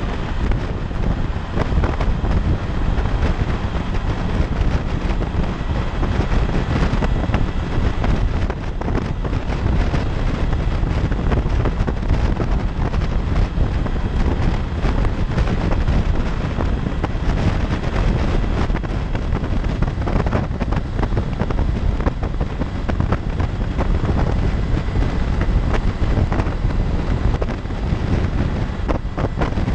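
Steady rush of wind over the microphone from a 2016 Honda CB500X motorcycle riding at freeway speed, with road and vehicle noise underneath.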